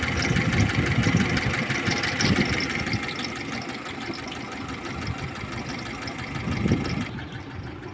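VAZ-2101 Zhiguli engine idling cold, with a fast, even, light ticking that the owner puts down to camshaft clatter. About seven seconds in it turns quieter and duller.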